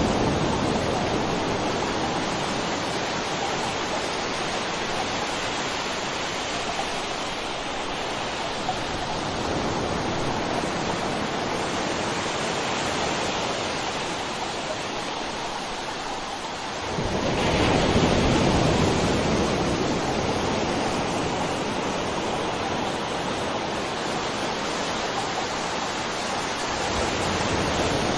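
Ocean waves breaking and washing on a shore, a continuous rush that swells every eight or nine seconds. The biggest wave breaks suddenly just past the middle.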